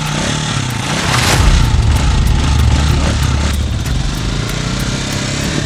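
Small motorcycle engine running, a low drone that grows louder about a second in.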